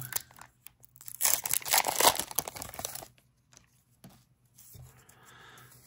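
Trading card booster pack's foil wrapper being torn open and crinkled. The loudest tearing and crackling comes between about one and three seconds in, followed by a pause and a faint rustle near the end.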